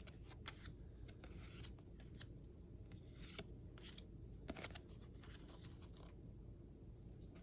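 Magic: The Gathering trading cards and their pack wrappers being handled: faint scattered clicks, flicks and rustles, with a couple of slightly longer rustles around three and four and a half seconds in.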